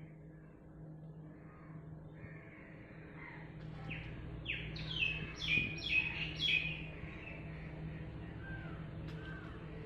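A crow cawing: a quick run of about seven calls in the middle, with a few fainter bird calls before and after, over a low steady hum.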